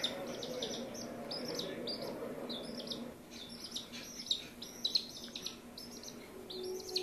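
A week-old chicken chick peeping over and over, in quick runs of short high peeps.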